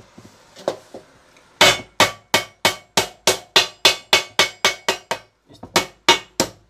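Wooden mallet beating a thin metal sheet laid over a wooden beam, in a quick even run of ringing blows, about three a second. The blows start about a second and a half in and pause briefly near the end.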